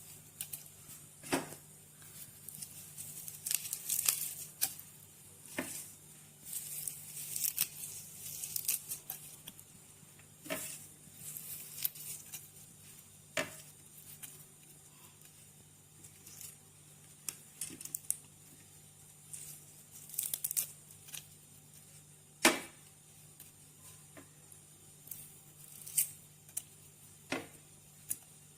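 Fresh herb leaves torn apart by hand, giving irregular crisp rips and rustles with a few sharper snaps, over a faint steady hum.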